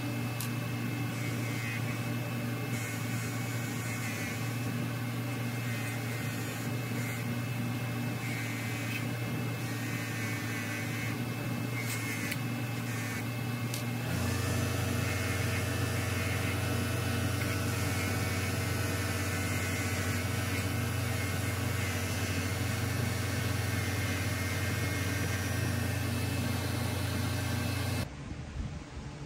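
A small electric motor, such as a power tool's, running steadily with a constant hum. The hum shifts in pitch about halfway through and cuts off shortly before the end.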